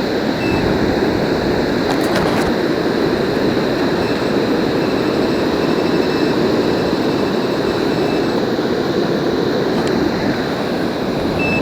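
Steady loud rushing of wind and surf, with a short high metal-detector beep just after the start and again near the end, and a few faint clicks about two seconds in.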